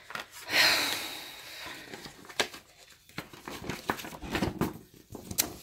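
A folded paper poster being unfolded and handled: a loud paper swish about half a second in, then light rustles and taps of the paper against the desk.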